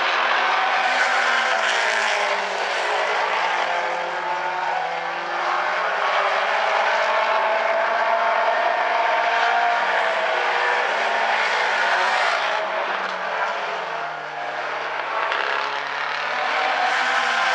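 Outlaw Compact race cars running at racing speed, their engines rising and falling in pitch as they pass by, several cars heard at once.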